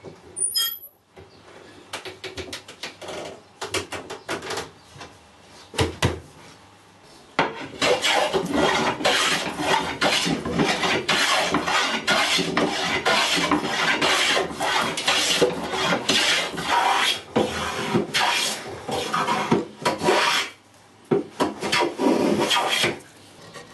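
Hand plane taking shavings off a wooden board, stroke after stroke. There are a few scattered strokes and knocks at first, then about thirteen seconds of steady, rapid planing strokes, a short pause, and a few more strokes near the end.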